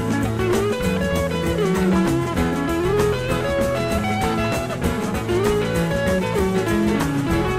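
Background music: a guitar-led instrumental passage over a steady drum beat, the lead line sliding and bending between notes.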